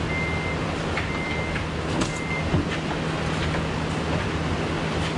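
Honda Element's 2.4-litre four-cylinder engine idling with a steady low hum. A high electronic chime beeps about once a second and stops about halfway through.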